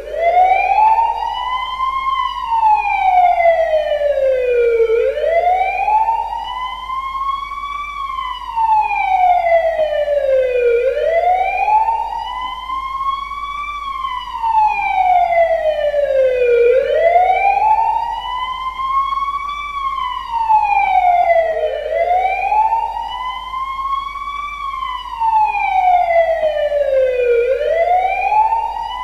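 Emergency vehicle siren in slow wail mode: one tone rising and falling in pitch, each rise-and-fall taking about six seconds and repeating steadily.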